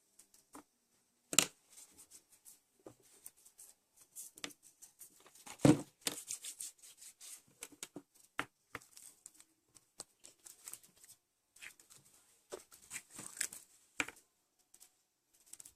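Slime being handled and worked by hand: irregular sticky crackles and clicks, with two sharper cracks about a second and a half in and just before six seconds.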